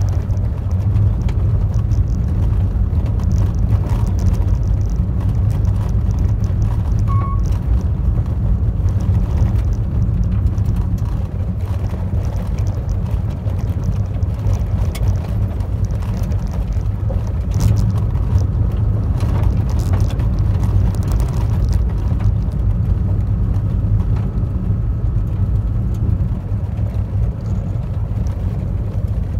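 Car rolling along an unpaved gravel road, heard from inside the cabin: a steady low rumble of tyres and body, with scattered clicks and crackles of gravel against the car. The clicks thin out in the last few seconds.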